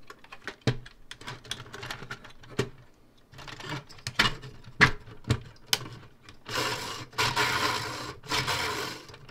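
3D-printed plastic jet engine model being handled: plastic parts clicking and knocking, then the front fan spun by hand, giving a rushing whir that lasts about two seconds near the end, with a short break partway through.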